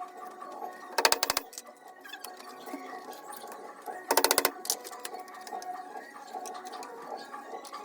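Sped-up hand-tool work on a mesh door's spring hinge: two short bursts of rapid, evenly spaced knocks, about a second in and again about four seconds in, with faint handling noise between.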